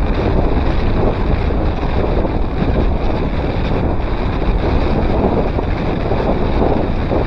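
Loud, steady wind rushing over an action camera's microphone on a bicycle riding at about 22 mph.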